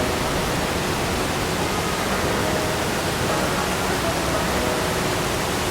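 Steady rushing of water from the Iguazu River and its falls, an even wash of noise with no breaks.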